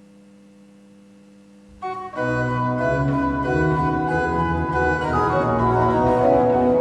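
A faint held organ tone, then about two seconds in a pipe organ comes in loudly, playing a full many-voiced passage with moving upper parts over a low bass line.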